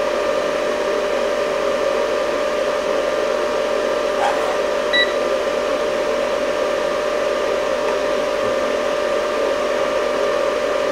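Steady fan-like whir with a constant hum tone, from equipment running on the bench. A short high beep sounds once about five seconds in.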